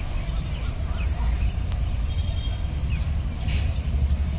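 Open-air background: a steady low rumble with a few faint, short high chirps over it.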